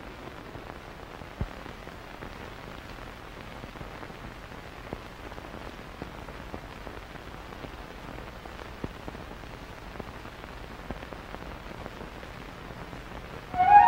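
Steady hiss with scattered clicks and pops from an old optical film soundtrack, with no speech. Just before the end, music from a gramophone record starts loudly.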